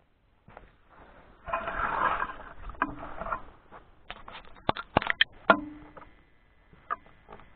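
Close handling noise on an FPV drone's onboard camera microphone as the quad is picked up out of the grass: a rustling scrape, then a few sharp clicks and knocks.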